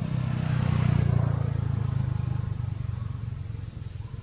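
A motor vehicle passing: its engine hum swells to a peak about a second in, then fades away.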